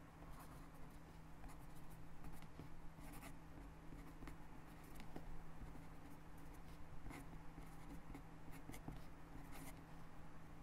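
Pen tip scratching across lined notebook paper as cursive handwriting goes on, a quiet run of short, irregular strokes with small pauses between words.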